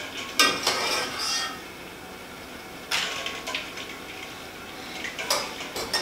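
Wire spider strainer and hard-boiled eggs clinking and knocking against a stainless steel bowl as the eggs are moved from the pot into an ice bath. The knocks come one at a time: a couple near the start, one about three seconds in, and two more near the end.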